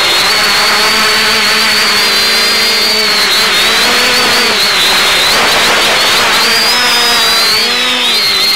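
Electric motors and propellers of an X550 quadcopter in flight, with several whining pitches over a steady rushing hiss. The pitches drift apart and together as the motors change speed through banking turns, swooping most near the end.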